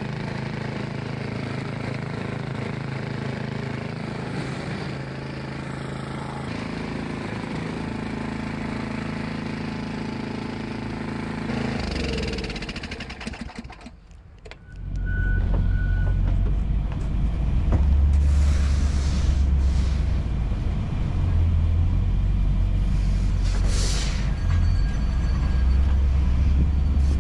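An engine running steadily, its pitch sliding down and dying away about twelve seconds in. After a short lull a louder, deeper engine rumble takes over.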